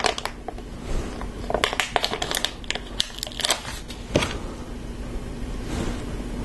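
A LEGO sticker sheet crinkling and crackling as a sticker is peeled off it: a quick run of small clicks and rustles, with a sharper knock about four seconds in as the plastic pieces are handled.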